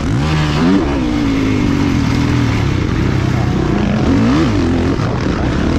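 Two-stroke motocross bike engine revving on the track: the pitch climbs sharply in the first second, holds fairly steady, then rises and drops again about four seconds in.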